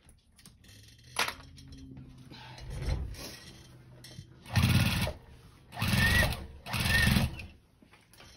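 Sewing machine stitching through thick layers of denim and flannel in three short bursts in the second half, each under a second, the last two close together. A single click comes about a second in.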